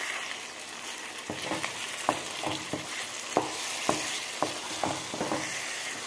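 Chicken pieces sizzling in oil in a pan while a wooden spatula stirs them. From about a second in, the spatula knocks and scrapes against the pan about twice a second over the steady sizzle.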